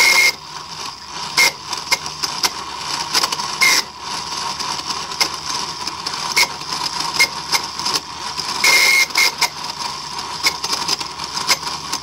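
The electronic throttle actuator of a 1995 Mercedes S320 (non-ASR throttle body), powered on the bench, screeching: a steady high whine with rapid, irregular clicking and short high squeals, the longest about nine seconds in. The motor keeps turning against the throttle plate because the failed internal clutch coil is not holding it.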